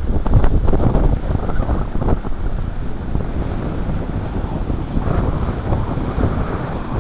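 Strong wind buffeting the microphone: a loud, uneven low rumble that rises and falls with the gusts.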